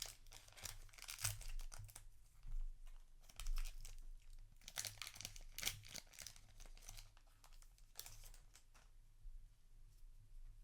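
Foil wrapper of a Yu-Gi-Oh! booster pack crinkling and being torn open, a run of irregular crackles that thin out near the end.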